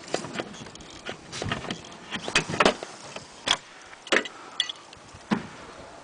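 Irregular sharp knocks and light clicks, roughly one every half second to a second, with a brief high ring about four and a half seconds in.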